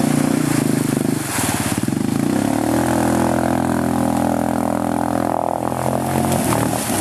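Yamaha Bruin 350 ATV's single-cylinder four-stroke engine under load, pushing into deep water. The revs shift over the first couple of seconds, hold steady, then drop off and falter near the end.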